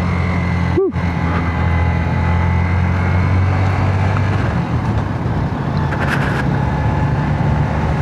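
Motorcycle engine pulling hard uphill in low gear under a steady rush of noise, the bike working under load on a steep climb. The sound cuts out for an instant just under a second in.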